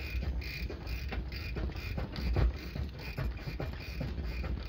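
Bicycle creaking and clicking in a steady rhythm, about two to three times a second, as it is pedaled, over a low rumble of wind and road noise on the bike-mounted microphone.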